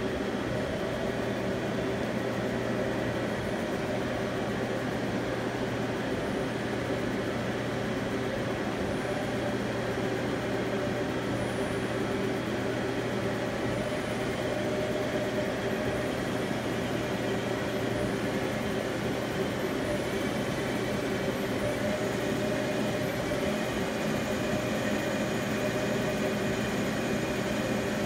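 2006 Okuma ES-L811 CNC lathe running: a steady machine hum with several held tones.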